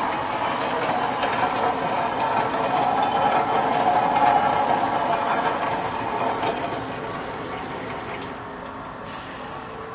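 Rotary 24-head bottle filling machine running: a steady mechanical clatter with rapid, regular ticking. Near the end the ticking stops and a quieter hum remains.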